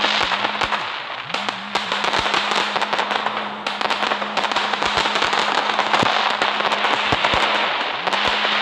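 Fireworks crackling continuously, a dense run of many sharp pops and snaps without a break.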